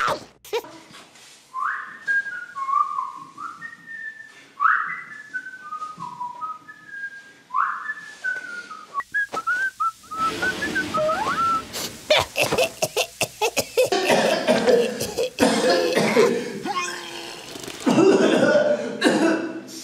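A short whistled tune of quick stepped notes, ending in a few sliding whistles. From about halfway on it gives way to loud wordless vocal noises.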